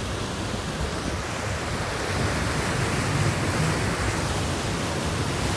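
Steady rushing of churning water in a moving boat's wake.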